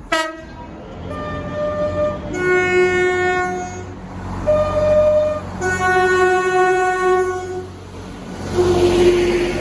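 Train's two-tone horn sounding high then low, twice over, then one more low note near the end, over a low rumble.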